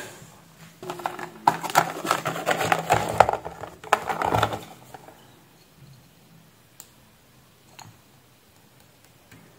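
A clear plastic box and test leads clatter and rattle on a workbench as they are picked up and set down, for about four seconds. After that only a couple of faint ticks.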